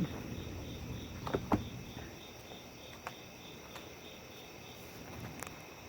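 Steady high-pitched insect chirping, crickets by the sound of it, pulsing about three or four times a second. A few light clicks come through about a second and a half in and again near the end.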